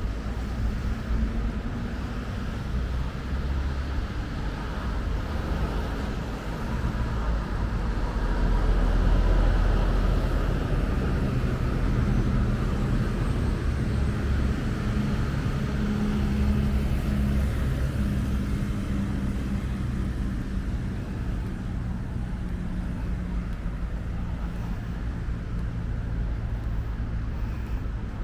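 Steady road traffic noise, a continuous low rumble that swells louder twice as vehicles pass, about a third of the way in and again past the middle.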